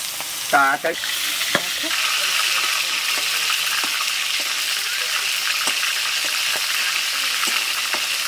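Battered chicken-intestine skewers deep-frying in hot oil in an aluminium kadai: a steady sizzle that swells about a second in and holds, with a few faint ticks. A short wavering pitched sound comes about half a second in.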